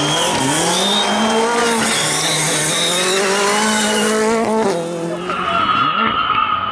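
Ford Fiesta RS WRC rally car at full throttle through a gravel corner, its turbocharged four-cylinder engine note climbing and falling through quick gear changes and then held high. It lifts off sharply about four and a half seconds in.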